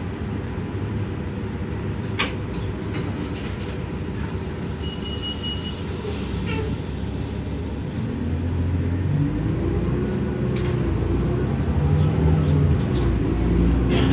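A 2007 New Flyer D40LF transit bus's Cummins ISM diesel engine running low, heard from inside the bus. From about eight seconds in it builds up louder with a rising tone as the bus accelerates. A short high beep sounds about five seconds in, and there are a couple of sharp rattles.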